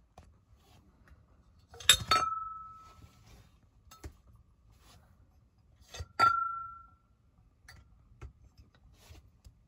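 Glass hurricane lamp chimneys clinking as they are handled and lifted off the lamps: two sharp clinks about four seconds apart, each ringing briefly at one clear pitch, with a few faint ticks in between.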